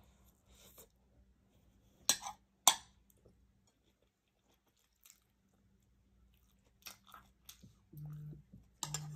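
Close chewing of food, with two loud, crisp crunches about two seconds in and softer mouth clicks between. Near the end a phone starts buzzing in short, repeated pulses about once a second: an incoming call.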